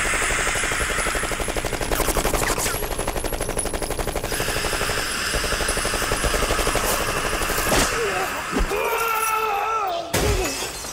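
Rapid, sustained gunfire from an animated action soundtrack, many shots a second. It stops about eight seconds in, and a wavering voice and a few scattered hits follow.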